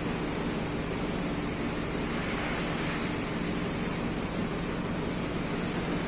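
Steady background noise: a continuous even rushing hiss over a low hum, unchanging, with no distinct knocks or tool strikes.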